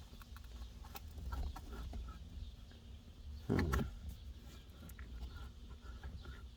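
Faint clicks and light knocks of tools and parts being handled inside the Jeep XJ's console area, over a low rumble, with one louder short low sound about three and a half seconds in.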